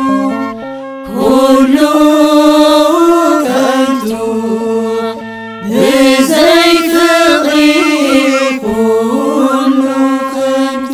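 Ethiopian Orthodox Tewahedo hymn (mezmur) in Tigrinya, sung by choir voices over an accompaniment of held instrumental notes. The voices come in about a second in, break briefly just past the middle, sing a second phrase, and give way to the accompaniment alone near the end.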